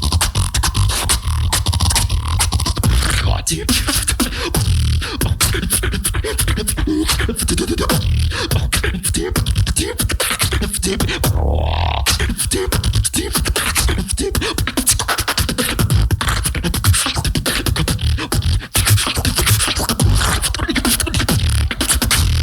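Solo human beatboxing: a fast, dense run of vocal kick-drum thumps and sharp snare and hi-hat clicks, with a rising vocal sweep a little before the middle.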